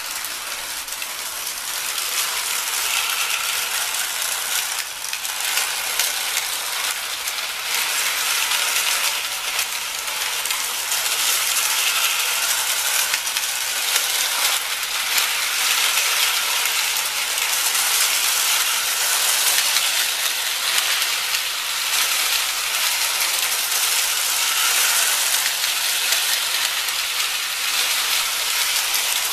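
Lionel 675 toy steam locomotive and passenger cars running around a loop of three-rail tinplate track: a steady metallic rattle and clatter of wheels on rail and the locomotive's motor gearing.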